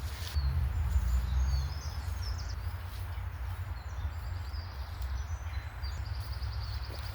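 Wind rumbling on the microphone, with small birds chirping high above it, a few at a time and in a quick run near the end.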